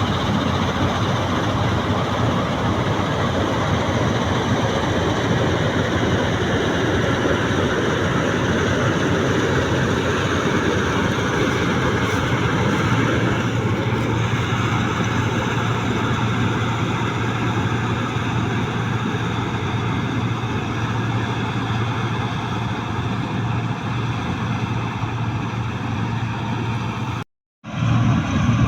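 New Holland 8070 combine harvester running steadily with a low engine hum under a broad mechanical din. The sound drops out for a moment near the end, then resumes.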